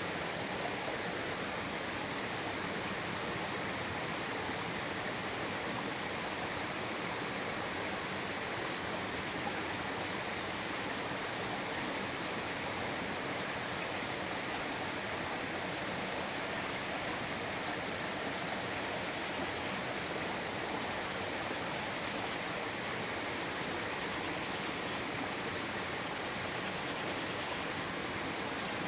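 Steady rush of a flowing stream: an even, unbroken hiss of water with no separate splashes or knocks.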